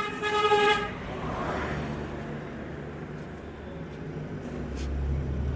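A vehicle horn sounds for just under a second, then road traffic goes by with a steady low engine rumble that grows louder near the end.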